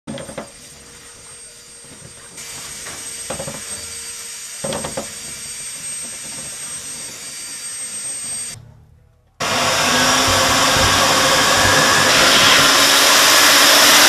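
Dryer lint being pulled by hand out of a clogged vent opening, with a few knocks and scrapes. After a brief gap, a duct-cleaning vacuum runs loud and steady with its hose held over the vent.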